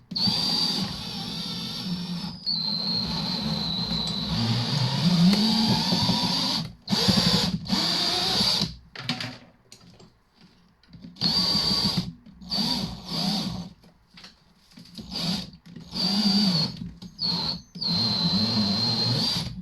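Cordless drill driving a wire stripper as copper cable is fed through, in seven runs: one long run first, its high whine dipping in pitch about two and a half seconds in, then shorter starts and stops. The owner finds this drill underpowered for the job, struggling to push the wire through.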